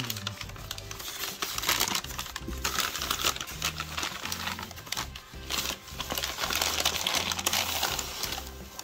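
Brown kraft paper bag crinkling and rustling as it is handled, unfolded and reached into, in irregular bursts, over background music.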